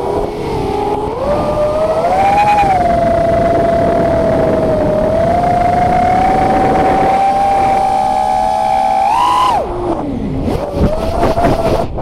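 FPV quadcopter's brushless motors and propellers whining in flight, the pitch rising about two seconds in and then holding steady. About ten seconds in the whine jumps briefly, then drops sharply and turns ragged and stuttering as the quad goes down, a crash the owner puts down to a motor damaged by an earlier hit.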